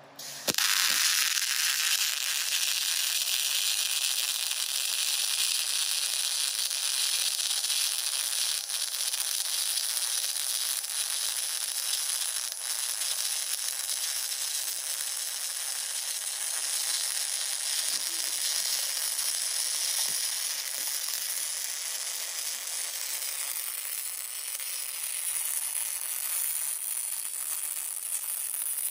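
MIG welding arc crackling and sizzling steadily through a long continuous weld, starting about half a second in.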